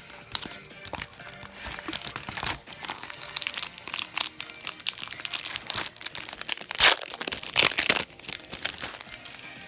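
Packaging being handled and crinkled during an unboxing: irregular crackling and rustling, with the sharpest crinkles about 7 and 8 seconds in, over background music.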